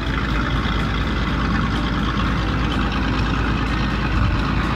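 Heavy truck engine idling steadily, a low even rumble laid over the picture as a sound effect.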